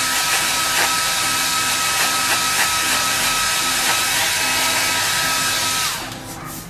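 Handheld pet blow dryer running, a steady rush of air with a whine, blowing through a dog's long coat. Near the end it winds down, its whine falling away as it is switched off.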